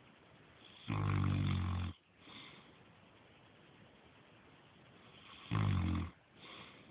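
A man snoring in his sleep: two loud, buzzing snores about four and a half seconds apart, the first about a second long and the second shorter. Each is followed by a fainter, breathy sound.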